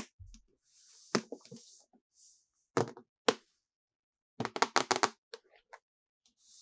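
Hard plastic toy pieces clicking and knocking together as they are handled, in a few quick clusters of taps, with a rapid run of clicks about halfway through. Brief soft crinkles of plastic packaging come between them.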